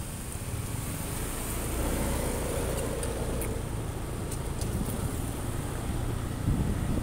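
Street traffic: cars and motor scooters passing, a steady rumble of engines and tyres, with a brief louder surge near the end.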